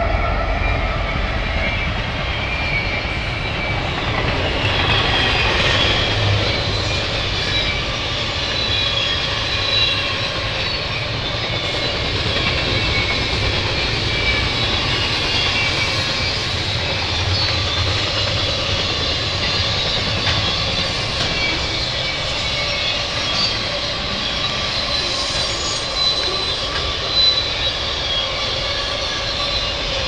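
Union Pacific double-stack container train rolling past: diesel locomotives at the start, then a steady rumble of stack-car wheels on the rails, with high thin tones wavering above it.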